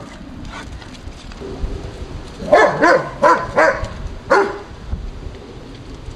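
Bouvier des Flandres puppy barking during rough play: a quick run of about five high-pitched barks starting about two and a half seconds in.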